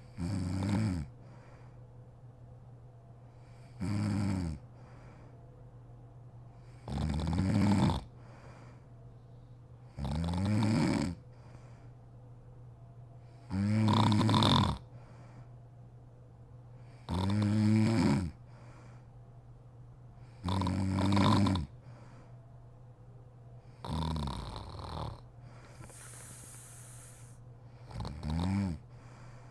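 A sleeping woman snoring, about nine loud snores of about a second each, coming roughly every three to three and a half seconds, over a steady low hum.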